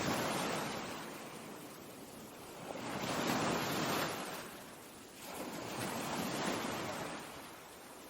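Ocean surf, waves swelling and ebbing in three surges about three seconds apart.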